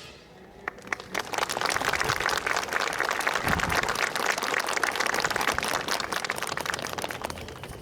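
Audience applauding, building up about a second in and slowly dying away near the end.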